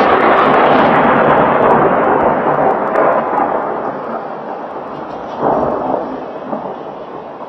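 Thunder close by: a sharp crack that opens into a loud, rolling rumble which slowly fades, with a second swell of rumbling about five and a half seconds in.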